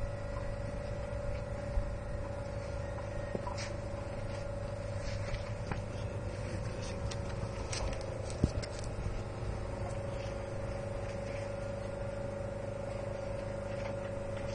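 A steady mechanical hum with a held mid-pitched tone and a low rumble, with scattered light clicks and one sharper knock about eight and a half seconds in.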